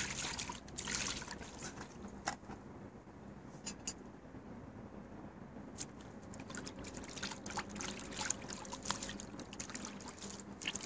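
Water being poured and splashed around inside a cast-iron kazan to rinse it, in two stretches near the start and in the second half, with many short sharp clicks and crackles scattered through it.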